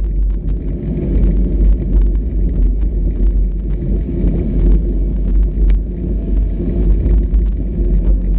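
Off-road vehicle driving over a rough trail: a steady low engine and drivetrain rumble, with scattered rattles and knocks from the bumpy ground.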